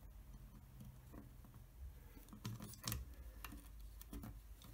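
Faint, scattered clicks and light taps of hands handling a small circuit board and its wires while soldering, with two sharper clicks about two and a half and three seconds in.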